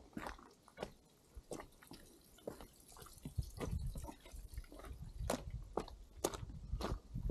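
Hiker's boots stepping down a rocky, gravelly trail: irregular crunches and clicks of stones underfoot, growing louder and heavier toward the end.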